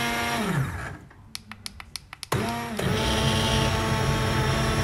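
Immersion blender motor puréeing cooked spelt and water in a steel pot: it is switched off about half a second in and its pitch falls as it spins down. After a short pause with a few light clicks it starts again, rising in pitch, and runs steadily.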